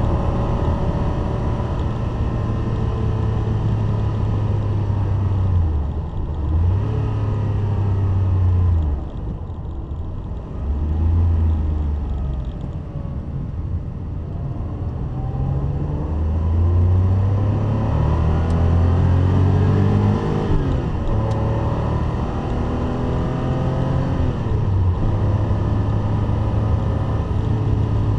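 Classic Porsche 911's air-cooled flat-six engine heard from inside the cabin on a track lap: it runs at high revs, drops off as the driver shifts and lifts around the middle, then climbs in pitch again as it accelerates through the gears.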